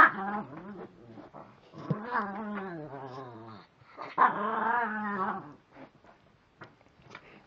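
Small dog growling in play while rolling on her back, three drawn-out wavering growls with short gaps between them.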